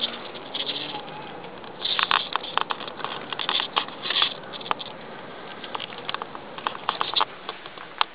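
Handling noise from a handheld camcorder: irregular clicks, taps and scratches, denser about two seconds in and again around four seconds in.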